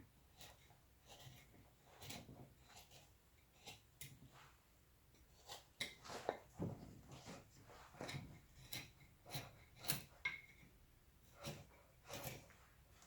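A blade carving wood by hand: a string of short, faint cuts and scrapes at an uneven pace, coming closer together in the second half.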